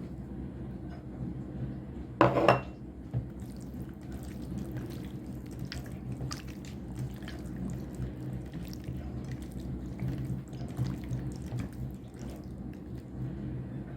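Kitchen food-preparation sounds: one short loud noise about two seconds in, then scattered small clicks and taps of dishes and utensils over a low steady hum.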